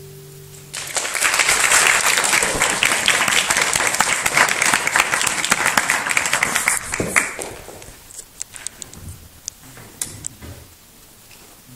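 The last chord of a classical guitar rings and fades, then an audience breaks into applause a little under a second in. The clapping stays dense for about six seconds, then thins to a few scattered claps.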